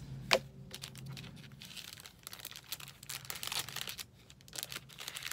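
Paper pages and clear plastic packaging being handled: crinkling and rustling in dense clusters of short strokes, with one sharp tap about a third of a second in.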